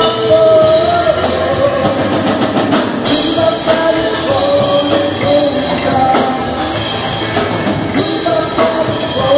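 Live rock band playing: a male singer with electric guitar, bass guitar and drum kit.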